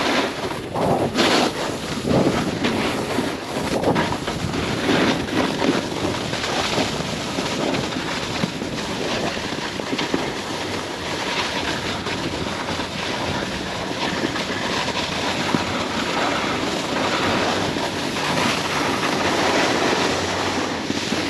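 Snowboard sliding and carving over slushy spring snow, a steady scraping hiss, with wind buffeting the microphone.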